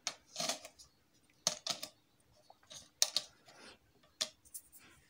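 Fingers handling an amplifier circuit board, tapping and brushing over its white ceramic cement resistors: a few light, irregular clicks and rubs.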